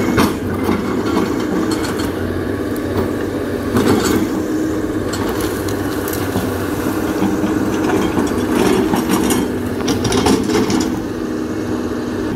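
CAT 320D hydraulic excavator's diesel engine running steadily under working load as the boom and bucket move through soil and brush, with scattered knocks and scraping clatter, the busiest bursts about four seconds in and again from about eight to ten seconds.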